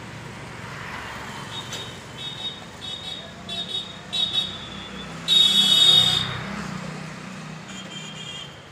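Large steel rolling shutter rolling up, its slats and guides giving short high-pitched metallic screeches in repeated bursts. The longest and loudest comes about five seconds in, over a steady low hum.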